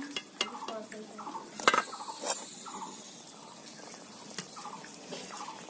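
Batter frying in hot oil in an iron kadai, a steady sizzle with scattered sharp clicks and clinks from spattering oil and the slotted spoon.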